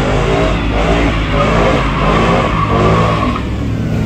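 Ford Mustang's engine revving up and down about twice a second as it does a burnout, with a steady tire squeal through the middle.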